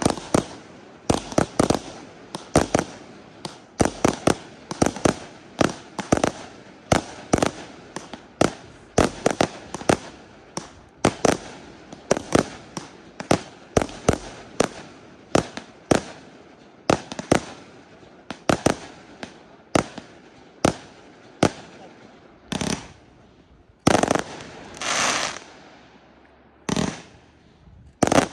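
Fireworks display: aerial shells bursting in quick succession, sharp bangs several a second. They thin out after about twenty seconds, and a couple of longer hissing bursts come near the end.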